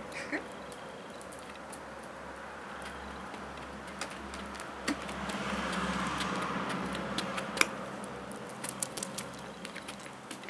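Light scattered clicks and ticks of a small dog moving on stone paving, with its collar tag jingling. A low hum swells and fades about halfway through.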